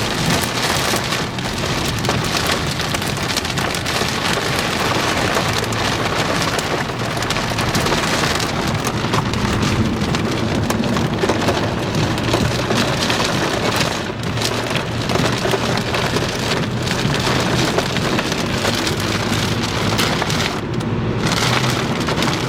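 Heavy rain beating steadily on a moving car's windshield and roof, heard from inside the cabin, over a low steady hum of the vehicle on the road.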